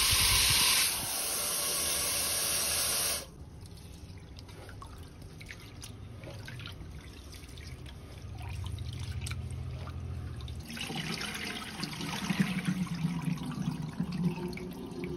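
Tap water running into a steel pot of rice in a stainless steel sink, stopping abruptly about three seconds in. Then hands swish and rub the rice grains in the water, with splashing that grows busier near the end as the cloudy rinse water is tipped off.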